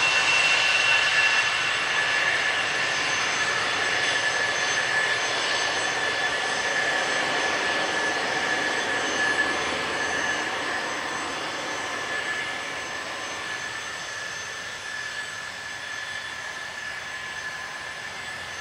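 Bombardier Challenger 350 business jet's twin Honeywell HTF7350 turbofans whining as it rolls down the runway, with a steady high whine over a jet rush. The sound fades steadily as the jet moves away.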